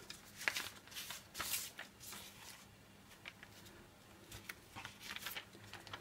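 Brown gummed paper tape, a long strip with its glue side dampened, rustling and crinkling in a series of short, faint rustles as it is handled and laid down over the edge of the wet watercolour paper.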